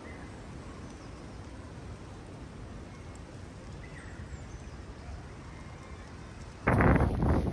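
Quiet rural outdoor ambience with a few faint high chirps. Near the end, loud wind buffeting the microphone starts abruptly.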